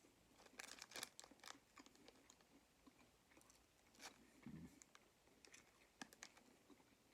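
Faint chewing and crunching of fried okra: a few scattered crisp crackles, with a cluster about a second in.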